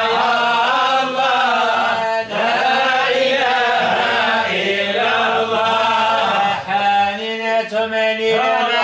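Unaccompanied men's voices chanting a Sufi devotional song: a lead singer's melody, with pitch rising and falling, over a steady low held note.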